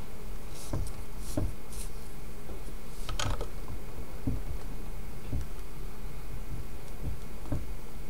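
Hands working thin cord into a knot around a dumbbell handle: scattered soft ticks and rustles of cord and fingers, a slightly longer rustle about three seconds in, over a steady low hum.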